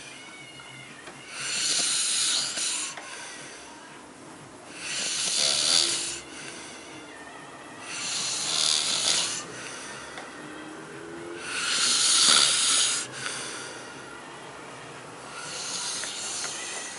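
A man snoring loudly: five long, noisy snores, one every three to four seconds, with quieter breathing between them.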